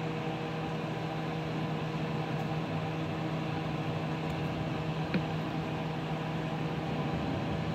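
Steady machine hum with a low tone, and a single brief click about five seconds in.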